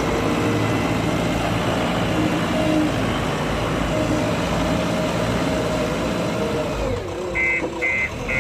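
Diesel engine of a JCB 3DX backhoe loader running with a shifting pitch under work. About seven seconds in the engine note drops, and a reversing alarm starts beeping about twice a second.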